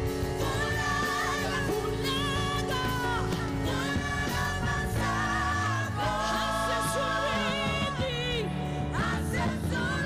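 Live gospel music: a lead singer with a wavering vibrato and backing singers over bass guitar, keyboard and drums, playing without a break.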